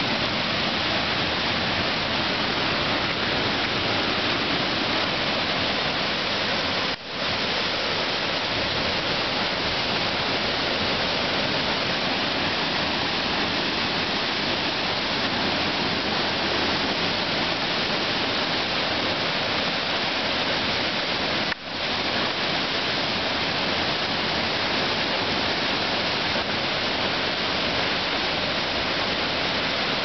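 Waterfall: a steady, even rush of falling water that dips out twice, briefly.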